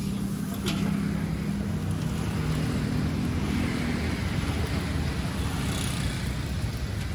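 Steady low rumble with a hiss underneath: roadside traffic noise mixed with the stall's wok burner.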